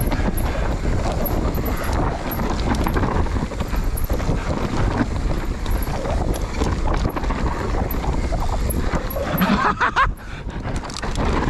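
Mountain bike riding fast downhill on a dirt trail: wind buffeting the microphone over the rumble and rattle of tyres and frame on the rough ground. A brief vocal call cuts through about ten seconds in.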